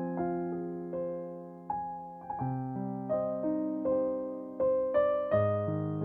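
Background music: a slow piano melody, single notes and chords struck about every half second to a second, each fading away.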